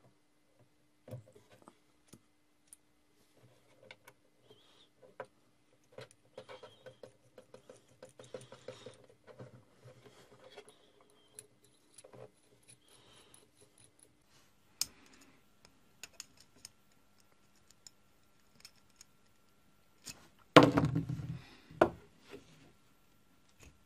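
Small metal clicks, taps and scrapes as brass pen parts and a refill are handled and screwed together. A short, much louder clatter comes near the end as the assembled pen is moved about.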